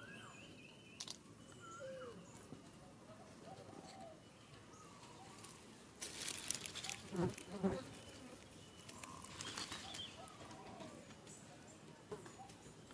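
Faint outdoor ambience with scattered short chirps and calls. A louder rustling scuffle comes about six to eight seconds in, with two dull knocks in it.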